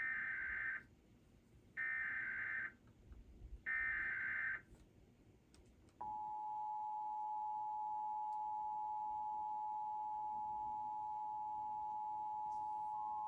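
Emergency Alert System test tones: three short bursts of the buzzy, warbling SAME header data, about two seconds apart, then about six seconds in the steady two-tone EAS attention signal starts and holds.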